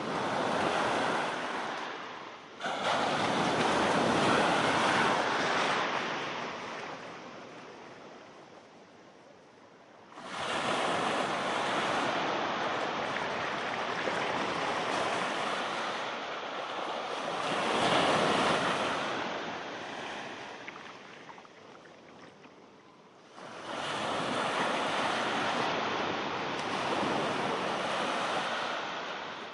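Indian Ocean surf washing in three loud surges, each coming in suddenly and fading away over several seconds.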